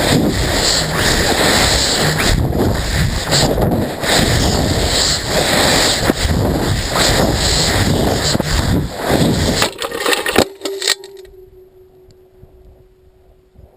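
Rocket motor roar: a loud, rough rushing noise full of crackle that cuts off abruptly about ten seconds in. A faint steady tone is left afterwards.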